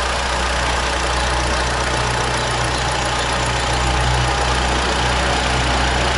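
Opel Astra G ECOTEC petrol engine, converted to run on LPG as well, idling steadily with an even hum.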